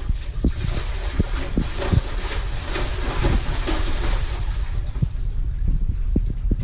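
Water splashing and sloshing, over a low rumble of wind buffeting the microphone; the splashing hiss swells in the middle.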